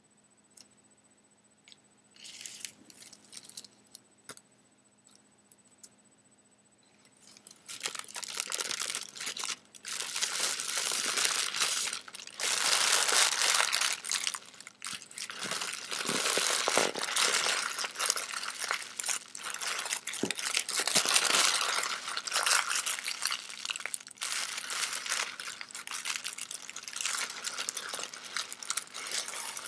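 Tissue paper being crumpled, scrunched and pressed flat by hand, crinkling loudly and continuously from about seven seconds in, after a few seconds of faint scattered rustles.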